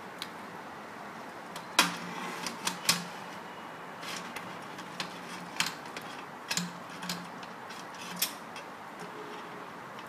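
Scattered sharp metal clicks and knocks, the loudest about two seconds in, as a steel mortise lock body is handled and slid into the slot of an aluminium door panel.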